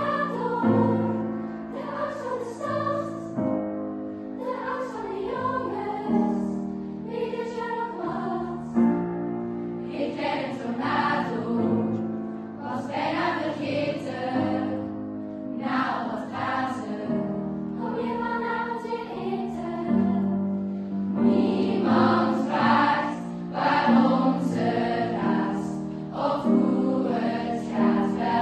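Choral music: a choir singing held notes in slow phrases, likely a soundtrack laid over the footage.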